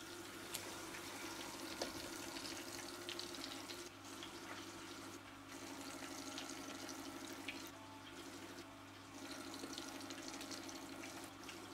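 Quiet kitchen background: a steady low hum with a faint hiss and scattered light clicks.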